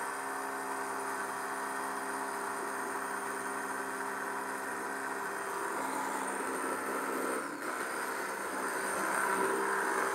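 Handheld immersion blender running submerged in liquid sauce in a pot, mixing in xanthan gum to thicken it. A steady motor whir whose pitch shifts a little as the blade head is moved, with a brief dip in level about seven and a half seconds in.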